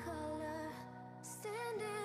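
Background music: held chords with a wavering melody line coming in about one and a half seconds in.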